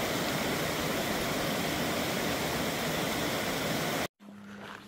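Steady, even rushing of running water, as from a mountain stream or cascade, cutting off suddenly about four seconds in.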